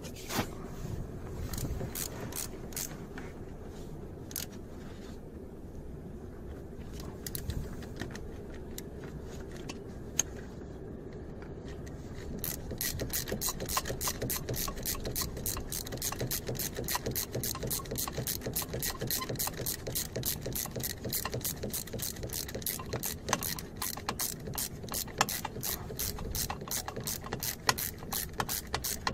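Socket ratchet clicking as it turns a bolt on the EGR valve of a Suzuki Liana 1.6. The clicks are slow and uneven at first, then become a steady, rapid run of several clicks a second from about halfway through.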